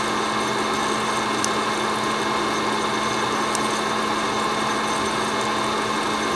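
Recorded sound of a Fresh Roast SR540 hot-air coffee roaster, its fan running steadily, with two sharp popcorn-like pops about two seconds apart as the beans go through first crack.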